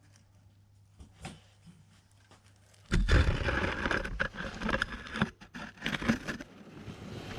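Loud rustling and scraping with many short clicks, starting suddenly about three seconds in after a near-quiet start.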